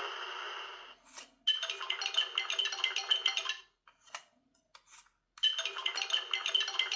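A short electronic toy tune of chiming, xylophone-like notes plays twice, each run about two seconds long, with a pause between them that holds a few light clicks.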